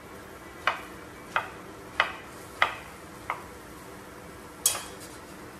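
Chef's knife chopping through soft mango onto a wooden cutting board: five evenly spaced chops, then one sharper knock near the end.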